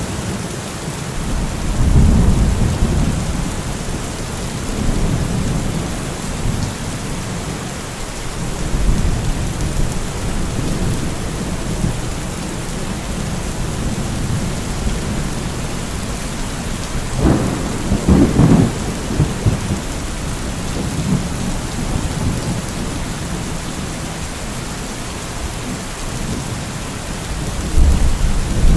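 Steady rain with rolling thunder: low rumbles swell and fade several times, and a louder crack of thunder breaks through about two-thirds of the way in.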